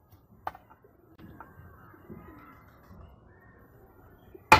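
Knife chopping through a dragon fruit stem onto a wooden board: a light tap about half a second in, then one sharp chop near the end.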